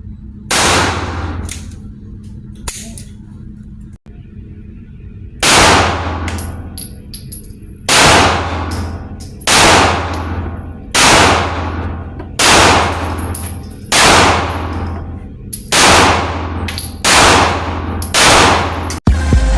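Gunshots at an indoor shooting range, each crack trailing off in a ringing echo. After a pair of shots near the start and a pause, a steady string of about nine shots follows, roughly a second and a half apart.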